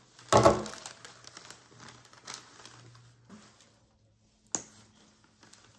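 A brief crinkling rustle, then faint scattered taps and rustles and one sharp click about four and a half seconds in, as small acrylic paint tubes are handled.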